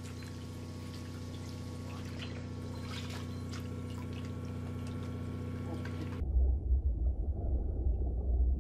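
Water sloshing and trickling in a hole in the sea ice as a Weddell seal dives through it, with short splashes over a steady low hum. About six seconds in the sound cuts to a louder, wavering low rumble.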